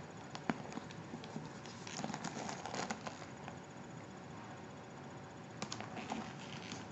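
Handling of a leather handbag being unpacked and looked over: soft rustling with scattered light clicks and taps, the rustling strongest around two to three seconds in and a few sharper clicks near the end.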